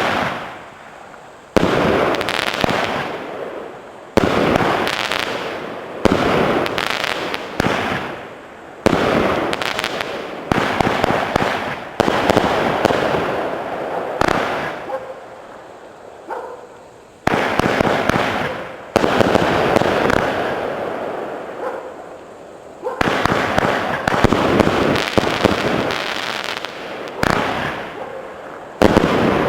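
The '28佳人' multi-shot fireworks cake firing: a sudden loud shot every one to two and a half seconds, each fading away in a noisy tail before the next.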